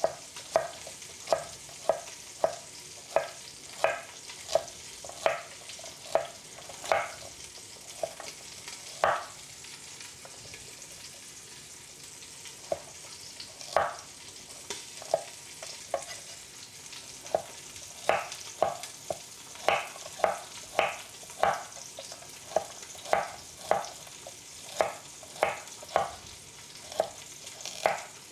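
A knife chopping on a cutting board in slow, uneven strokes, about one to two a second, pausing for a few seconds near the middle. A pan sizzles steadily underneath.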